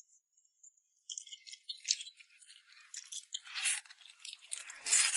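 Close-miked food-handling sounds: irregular crackling, rustling and light clicking, such as noodles being mixed and picked up from a bowl, starting about a second in and growing busier and louder near the end.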